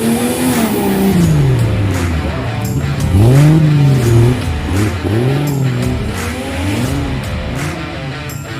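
Off-road 4x4 engine revving up and down over and over, the pitch rising and falling several times, loudest at a strong rev about three seconds in.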